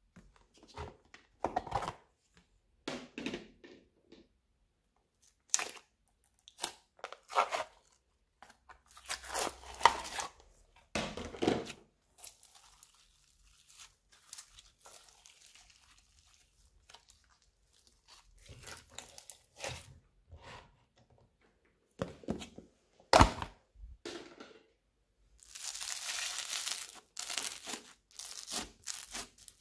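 Hands squeezing, pressing and pulling beaded slime and clay in a plastic tub: short separate squelching, crackling and tearing sounds with quiet gaps, and a longer continuous crackle near the end.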